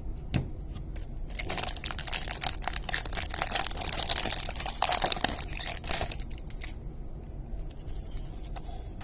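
Foil wrapper of a Topps baseball card pack being torn open and crinkled, a dense crackling from about a second in until about six seconds in, after which only a few faint clicks remain.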